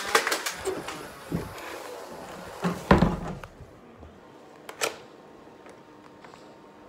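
Knocks and thumps from handling the phone camera: a quick run of clicks at first, a thump about a second and a half in, a loud knock about three seconds in, then a single sharp click near five seconds.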